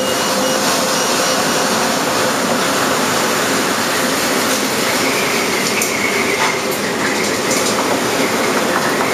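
Steady rushing noise of storm wind and heavy sea around a fishing vessel. A faint wavering whistle joins it about halfway through.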